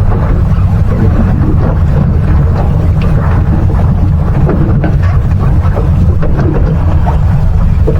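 Steady low rumble of wind and water noise aboard a fishing boat offshore.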